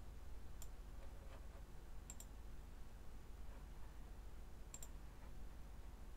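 A few faint, sharp clicks over a low steady hum: one at the start, one just after, then two quick pairs, one a couple of seconds in and one near the end.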